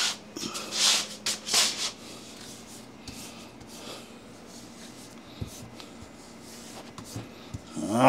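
Adhesive vinyl wrap film rubbed and handled on a fridge door: a few short rustling rubs in the first two seconds, then quieter handling with a couple of light taps.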